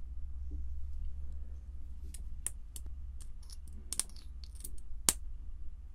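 Plastic lip gloss tube and wand handled close to the microphone: a run of small, sharp clicks and taps starting about two seconds in, the loudest one near the end, over a low steady hum.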